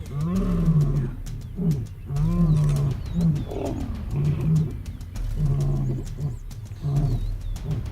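Lions roaring and snarling in a fight: a run of low, rough calls, each a second or less long, following close one after another.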